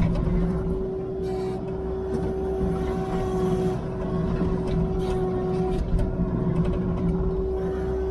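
Heavy machine's engine running steadily under way, with a constant whine over the low rumble and a few brief rattles.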